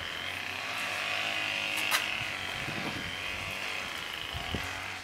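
String trimmer running steadily at a distance, a thin buzzing drone. A sharp click about two seconds in and a couple of low knocks near the end come from a box-end wrench on a brake caliper bolt.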